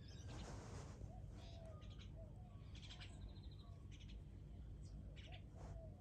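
Faint birdsong from outdoor birds: many short high chirps mixed with brief, lower curving calls, repeated every second or so. A soft rustle comes in the first second, over a steady low hum.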